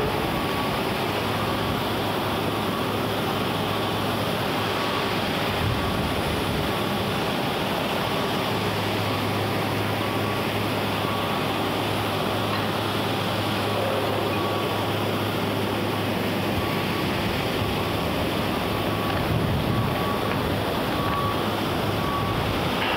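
Steady outdoor ambience of wind and distant surf with a low machine hum underneath, and a faint high beeping that comes and goes.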